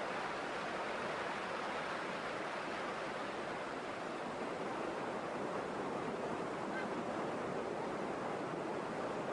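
Steady rush of a fast-flowing river over white-water rapids.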